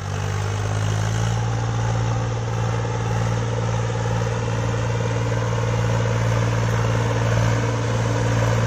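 Tractor diesel engine pulling a heavily loaded sugarcane trolley, running at a steady low drone that slowly grows louder as it approaches.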